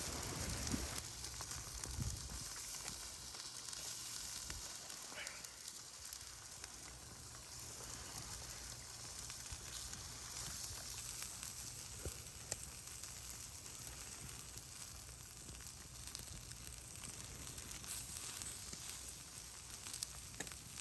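Chicken skewers sizzling over a charcoal grill, a faint steady hiss broken by a few small pops.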